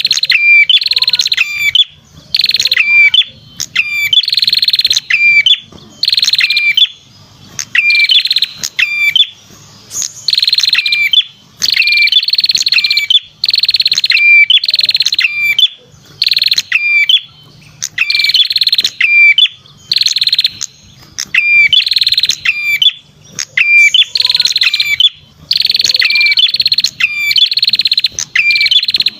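Perenjak kepala merah song played as a bird-catcher's lure call (suara pikat): loud, rapid chattering trills with sharp high notes, one phrase about every second and a half with short gaps between.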